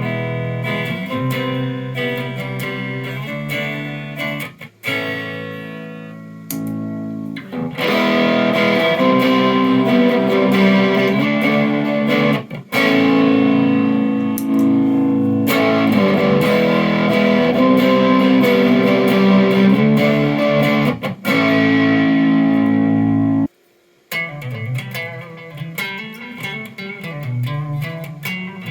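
Electric guitar played through the Mor-Gain Dumbbell effects pedal with distortion: sustained chords and notes that get louder and fuller about eight seconds in. Near the end there is a brief break, then quieter picked notes.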